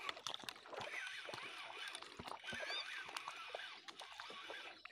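Faint outdoor marsh ambience: scattered small clicks and ticks with a few short, high chirps.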